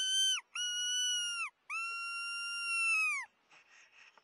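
Three drawn-out whistled notes, each held steady in pitch and sagging at its end: a short one, a longer one, then the longest.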